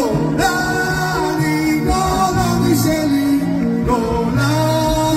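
Live amplified music: a man singing over a band backing with bass and a steady beat.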